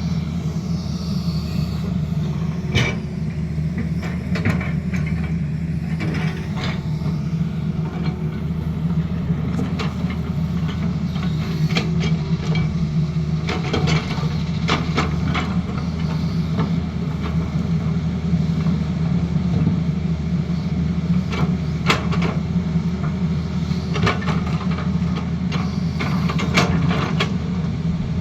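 Diesel engine of a Tata Hitachi Zaxis excavator running steadily under work, with scattered sharp knocks and clanks.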